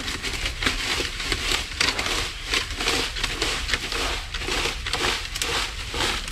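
Dry leaves crunching and rustling in quick, irregular strokes as they are gathered out of a crammed spot by hand or rake.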